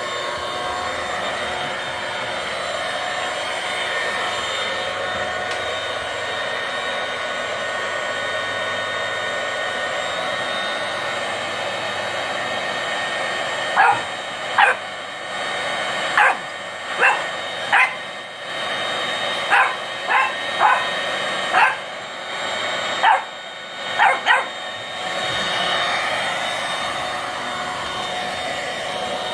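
Dirt Devil stick vacuum running with a steady whine. About 14 seconds in, a French bulldog puppy starts barking: about a dozen short, loud barks over some ten seconds, then the vacuum runs on alone.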